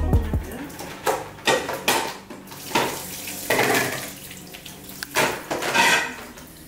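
Rice being rinsed in a stainless steel bowl at a kitchen sink: water sloshing and splashing several times, with clatters of the bowl, as the water is poured off through a colander.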